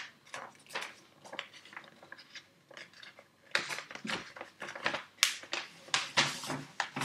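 A sheet of paper being folded and creased by hand, crackling and rustling in short snaps that grow denser and louder about halfway through.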